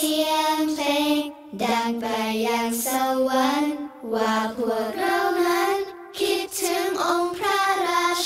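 A child singing a slow song in Thai, holding long notes, with three short breaks between phrases.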